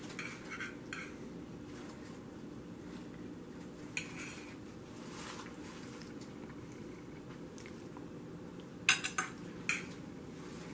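A metal fork scraping and lightly clinking against a cutting board and ceramic salad plates as steak slices are laid out, with a few sharper clinks about nine seconds in.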